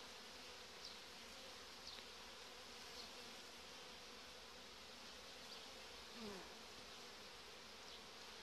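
Faint, steady hum of honeybees buzzing over the open hive's frames.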